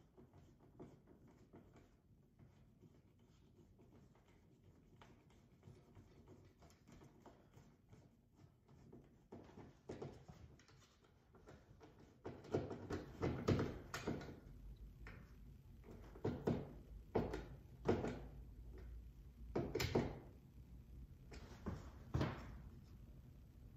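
Hand screwdriver turning screws through a plastic thermostat mounting plate into a wall. Faint scratching at first, then from about halfway a string of short, irregular creaks and scrapes as the screws bite and tighten.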